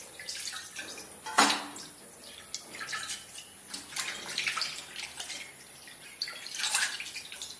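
Water sloshing and dripping as hands rinse grass carp head and bone pieces in a porcelain bowl of water, in irregular small splashes, the loudest about a second and a half in. The washing draws the blood out of the fish head and bones.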